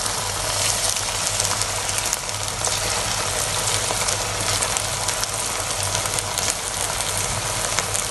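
Potato and sabudana snacks deep-frying in hot oil in a kadhai: a steady sizzle with many small crackles, over a steady low hum.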